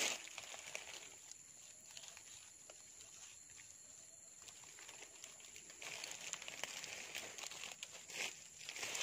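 Outdoor swamp-edge ambience: a steady high-pitched insect drone, with faint scattered rustling and crackling of dry leaf litter that gets busier about six seconds in.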